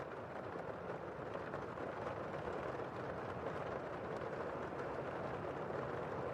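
Heavy rain heard from indoors: a steady, muffled hiss of rainfall, with little high end.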